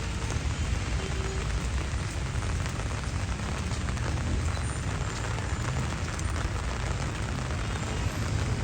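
Steady rushing noise of heavy rain, with a deep, even rumble beneath it.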